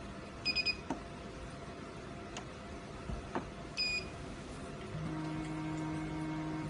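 Three quick electronic beeps, sharp clicks of metal discs being stacked on the worktable, and one more beep. From about five seconds in comes a steady motor hum: the auto-focus galvo scanner's Z-axis drive moving the scan head to the new working height.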